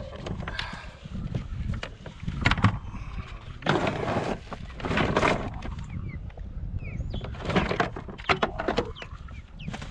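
Wind buffeting the microphone on a kayak, with repeated knocks and splashy bursts from the angler handling his paddle and gear. A few short bird chirps sound in the background.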